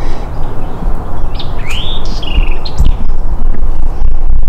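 A bird calling a few short chirps about a second and a half in, one arched and one flat whistled note, over a loud, steady low rumble.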